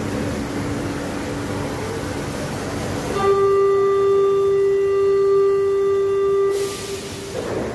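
Buenos Aires Subte Line E subway train slowing to a stop at a station platform. A loud steady electronic buzzer tone sounds for about three seconds, followed by a short burst of hissing air.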